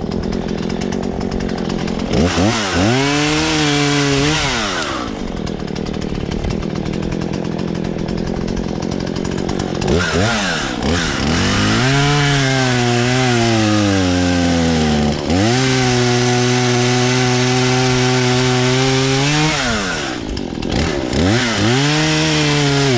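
Husqvarna 120 Mark III two-stroke chainsaw idling, then opened to full throttle three times to cut a fallen tree. In the long middle cut the engine note sags under load for a few seconds, then rises and holds steady before dropping back to idle, and a short rev comes near the end.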